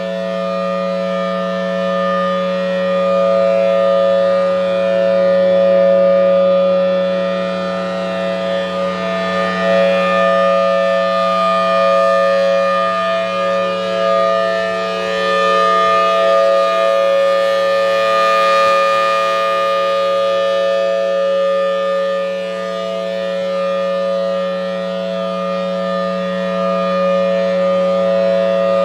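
Federal Signal Thunderbolt 1003 outdoor warning siren sounding a steady full-alert tone, its loudness swelling and fading slowly every few seconds.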